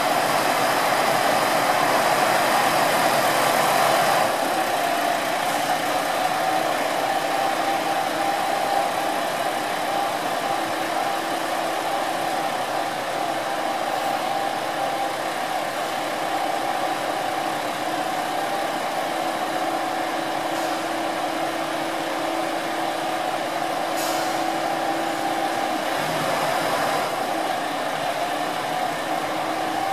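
JR Shikoku Kiha 2000 series diesel railcars idling, a steady engine hum, a little louder for the first few seconds, with faint clicks partway through.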